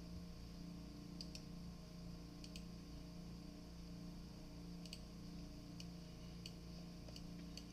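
A few faint, light clicks at irregular intervals from small metal tooling being handled and positioned (a 45-degree block and parallel clamps set against a workpiece), over a steady low electrical hum.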